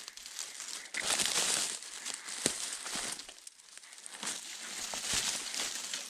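Footsteps crunching and crackling through dry leaves, pine needles and twigs on the forest floor, in two stretches of walking, with a few sharp twig snaps.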